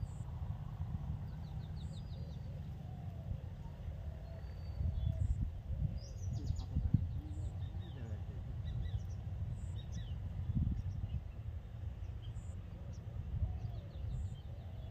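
Riverside outdoor ambience: scattered short bird chirps over a steady, uneven low rumble.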